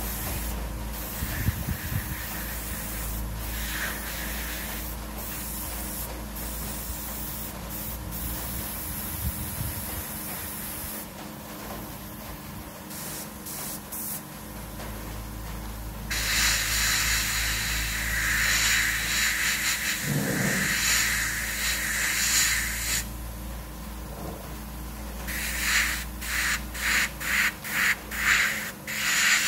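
Airbrush spraying paint, a hiss of air that comes and goes: on and off at first, a long steady spray in the middle, then a run of short quick bursts near the end, about two a second.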